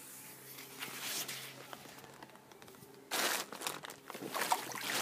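Plastic pool cover rustling and crinkling as it is pulled off the pool, louder from about three seconds in.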